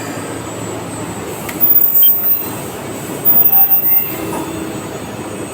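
CNC machine cutting zamac (zinc alloy) parts: a steady machining din, with two louder high-pitched squealing passes about a second long each, a second and a half in and again a little after three seconds.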